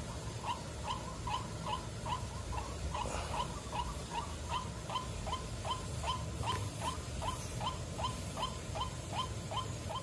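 White-breasted waterhen calling: a long, even series of short notes, nearly three a second, over a steady low rumble.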